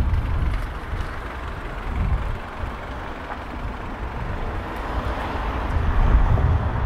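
Outdoor city ambience: a steady hiss of traffic with low rumbles that swell and fade, loudest at the start and again about six seconds in.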